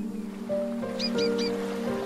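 Calm background music of slow, held notes, with three quick high bird chirps about a second in.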